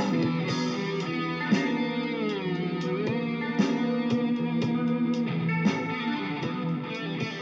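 Electric guitar through a distortion effect, playing long held notes rich in overtones, with a new note picked every couple of seconds. Between about two and three seconds in, one note slides down in pitch and comes back up.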